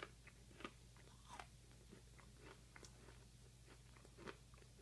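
Faint crunching and clicking of a person chewing a brittle, decades-old stick of 1985 trading-card bubble gum, with a few louder crunches scattered through.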